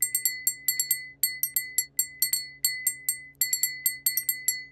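Metal fork tapping rapidly and repeatedly on a glass space helmet: a quick run of sharp tinks, about six a second, each ringing on a clear high note.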